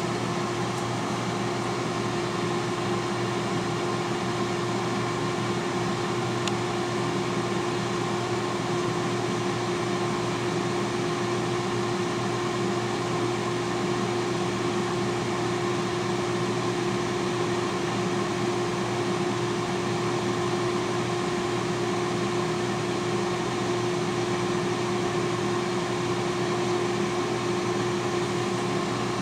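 T-fal air fryer running mid-cook: its convection fan gives a steady whir with a constant hum.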